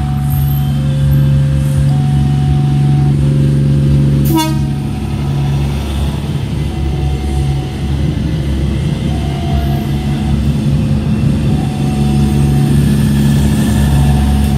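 Level-crossing warning alarm sounding two alternating tones, over the low rumble of a passing green-and-white commuter train. There is a brief sharp falling sweep about four seconds in.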